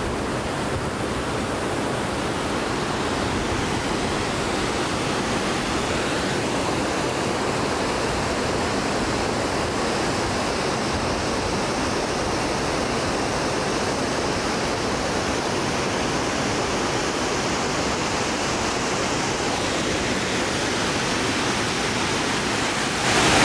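Rogie Falls, a river waterfall cascading over rocks, rushing steadily as constant white noise.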